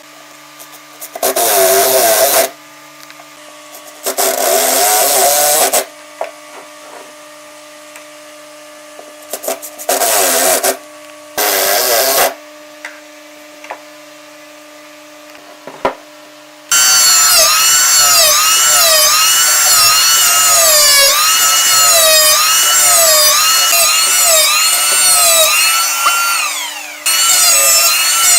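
A power tool working wood: four short bursts of cutting or sanding noise in the first half, then a motor running for about ten seconds with its pitch rising and falling over and over as it is loaded. Near the end it winds down and starts up again.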